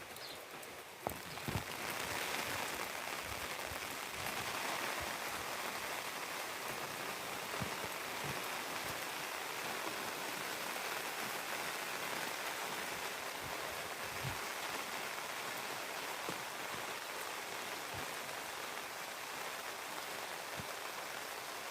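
Steady rain falling, with scattered single drops knocking close by. The rain grows louder about a second and a half in, then holds steady.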